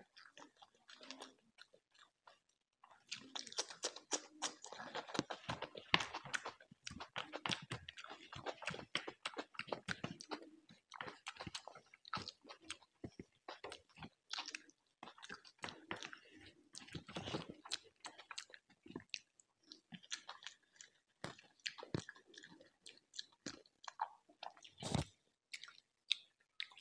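Close-miked chewing and crunching of chicken and rice, a dense run of short wet crackles that starts about three seconds in. One low thump stands out near the end.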